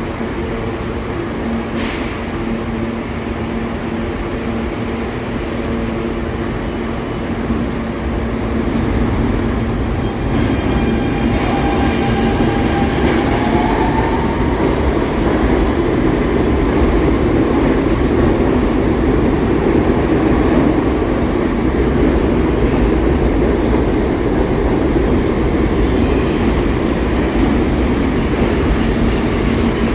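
New York City subway train of older SMEE cars running with a steady hum, getting louder about ten seconds in, with a brief rising whine soon after.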